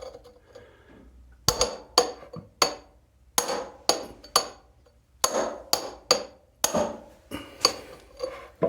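The metal glass-breaker tip on the butt of a SOG Trident AT folding knife is rapped repeatedly against glass: about fourteen sharp taps, roughly two a second, each with a short glassy ring. The glass holds and does not shatter.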